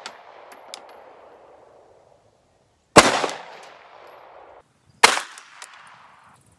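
Two shots from a 9mm Glock pistol firing 115-grain full metal jacket, about two seconds apart. Each shot is sharp and followed by a fading echo that lasts about a second and a half.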